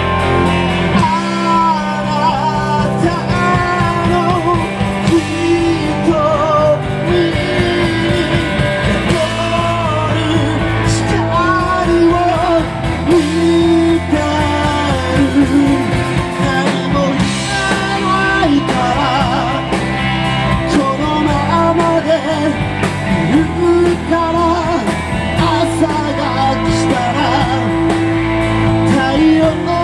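A live rock band playing: a man singing over electric bass, electric guitar and drums, with the vocal entering about a second in.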